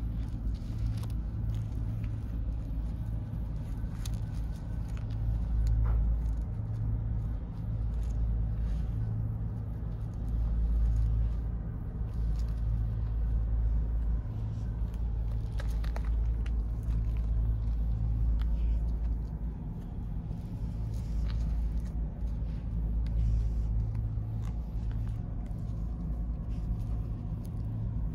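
Domestic cat purring close up: a low, continuous rumble that pulses on and off.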